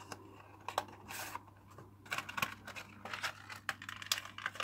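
A small cardboard toy box being opened by hand: scratching, tearing and rustling of the packaging, sparse at first and busier from about halfway through.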